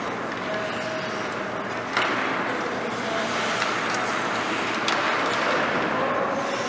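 Ice rink sound of hockey skates scraping and carving the ice, with two sharp knocks, about two seconds in and again near five seconds.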